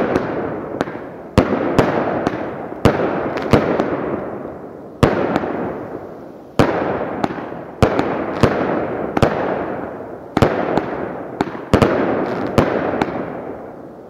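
Skysong "Strange Bird" 24-shot 200-gram fireworks cake firing shot after shot: sharp bangs about once a second, some in close pairs, each trailing off in a fading crackle.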